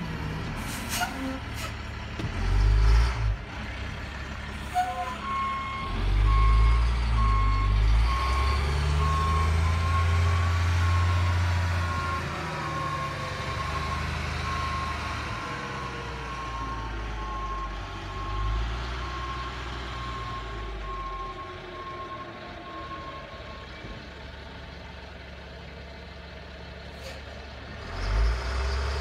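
Dump truck engine running and revving up in several surges, with its reversing alarm beeping repeatedly from about five seconds in until a few seconds before the end.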